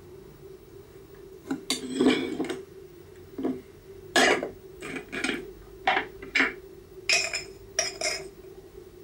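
Hard objects clinking and clattering about a dozen times at an irregular pace, as when dishes or cutlery are handled, over a steady low hum.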